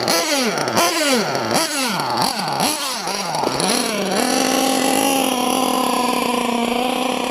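Small nitro RC engine, an LRP .32 with a Novarossi race carburettor, revved in quick repeated blips, each note falling away, then settling about four seconds in to a steady held note. The high-speed needle is set a bit lean.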